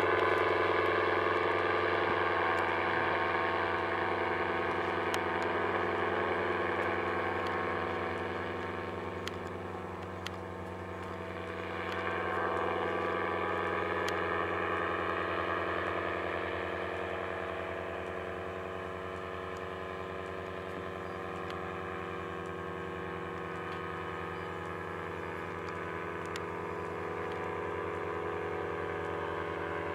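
Paramotor engine and propeller of a powered paraglider running steadily overhead as a drone that swells about twelve seconds in and then eases off as it moves away.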